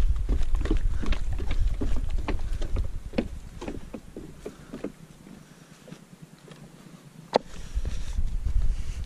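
Hiking footsteps on a trail, about three to four steps a second, with wind rumble on the microphone. The steps fade after about four seconds, and one sharp click comes near the end.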